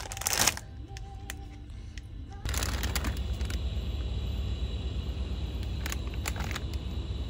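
A plastic bottle knocking into a plastic shopping basket, then a plastic food packet handled with scattered crinkles and clicks over a steady low hum, with faint background music.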